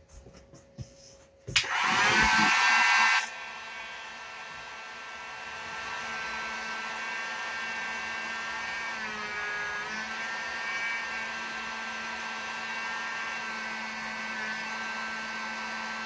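A few light handling clicks, then an electric heat gun switched on about a second and a half in. It blows loud for under two seconds, then settles to a quieter, steady blowing hum with a fan whine while heating adhesive-lined heat-shrink tubing on a battery cable lug.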